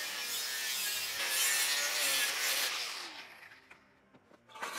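Angle grinder working steel tube: a harsh grinding for about three seconds, then the motor winding down with a falling whine. A second short burst of grinding near the end.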